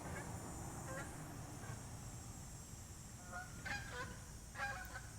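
Geese honking faintly, several short honks in the second half.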